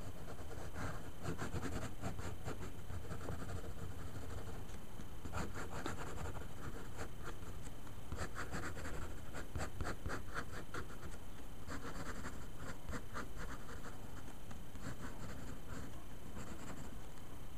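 Uni-pin fine-liner ink pen scratching on paper in bursts of quick, short hatching strokes, with pauses between the bursts.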